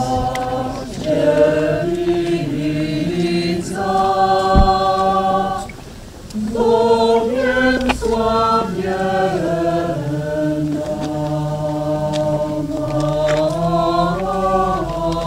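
Choir singing a slow hymn in long held notes, stepping from pitch to pitch, with a brief pause for breath about six seconds in before the singing resumes.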